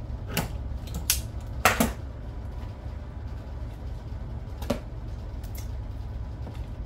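A few sharp clicks and clacks as a hand-crank can opener finishes cutting a large can and is set down on the counter, the loudest about a second and a half in. A few seconds later comes one more knock, the can against a metal mixing bowl as the gravy is tipped out, over a steady low hum.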